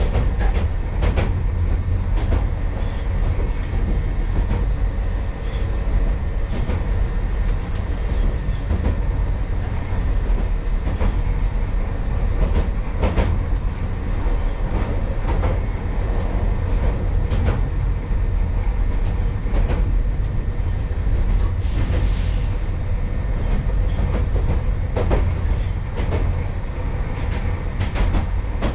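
Hankai Tramway streetcar running along the track, heard from inside the car: a steady low rumble with irregular clacks of the wheels over rail joints. A brief hiss comes about two thirds of the way through.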